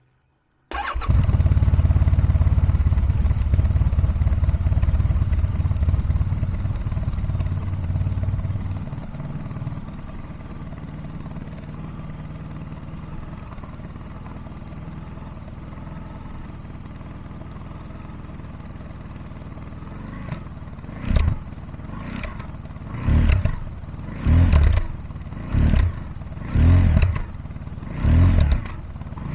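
Honda VFR1200X Crosstourer's V4 engine, breathing through a Leo Vince Evo One carbon exhaust, starts up about a second in. It runs at a higher idle for several seconds, then settles to a lower, steady idle. Near the end the throttle is blipped six times in quick succession, about one rev a second.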